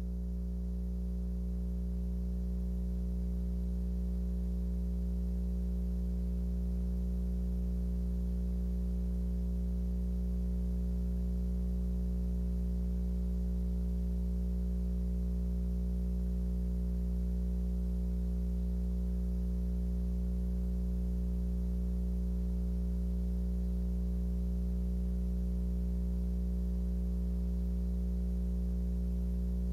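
Steady electrical hum with a buzz in it, low and unchanging: mains-type hum on the audio feed with no other sound over it.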